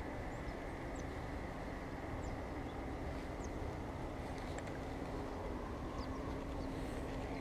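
Steady low rumble with a faint, even hum and a few faint high ticks.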